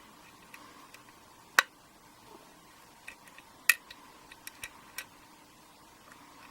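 Pin-tumbler mortise cylinder being single-pin picked: sharp metallic clicks of the pick working the pins, one loud click about one and a half seconds in and a cluster of smaller ticks around four seconds.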